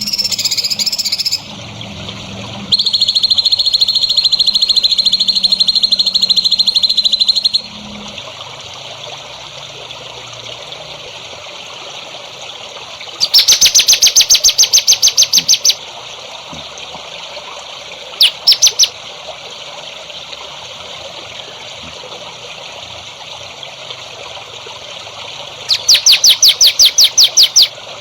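Songbird singing: a long, fast, even trill, then two loud bursts of rapid repeated high chirps with a short double note between them, over a steady background trickle of water.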